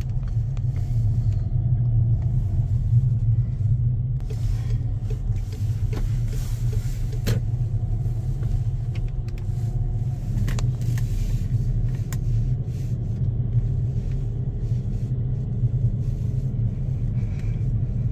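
Steady low rumble of a car driving slowly, road and engine noise heard from inside the cabin.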